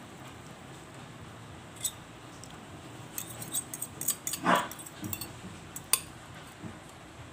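Scattered light clicks and taps of kitchenware while beaten eggs are poured over the torta mixture in a plastic container. About four and a half seconds in, one short, louder animal call stands out over the clicks.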